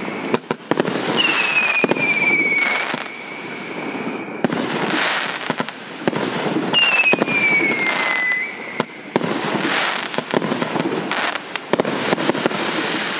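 100-shot 1.2-inch fireworks cake (Orient OTC 5190) firing a rapid barrage: repeated launch thumps and shell bursts with crackle. Two whistles fall in pitch, one starting about a second in and one about seven seconds in.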